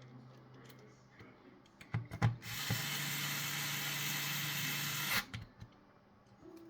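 A few clicks of handling, then a small electric screwdriver runs steadily for about three seconds, driving a screw into the radio head unit's casing.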